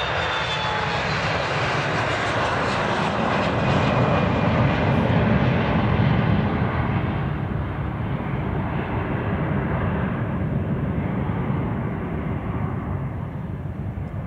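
Bombardier CRJ regional jet's two rear-mounted turbofans at takeoff thrust, a loud jet roar with a thin whistle in the first second or two. It swells for about five seconds as the jet goes by, then slowly fades as it climbs away, losing its hiss first and leaving a low rumble.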